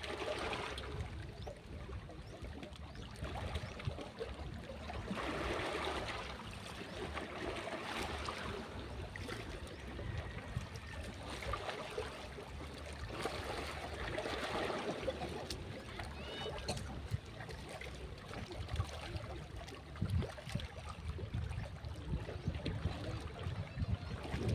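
Waves washing onto a beach, the wash swelling and fading every few seconds over a steady low rumble.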